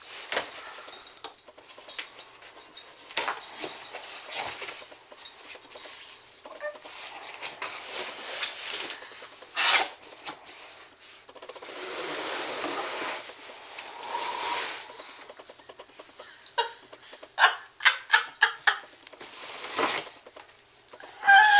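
A blade cutting through packing tape and a sealed cardboard box, with scraping and rustling of cardboard as the box is worked open. A run of sharp clicks and knocks comes near the end as the contents are pulled out.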